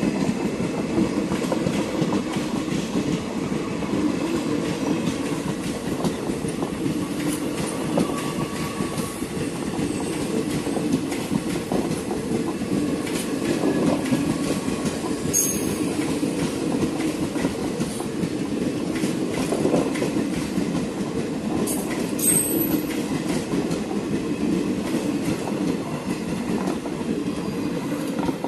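Indian Railways passenger coaches passing at high speed: a steady rumble and clatter of wheels over the rails, with brief high wheel squeals a couple of times partway through.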